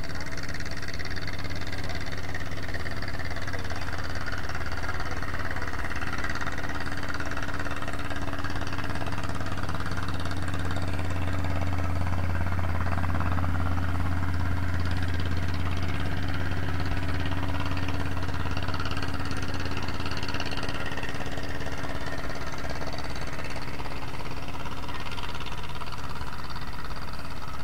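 An engine running steadily, a low drone that grows a little louder midway and eases off again later.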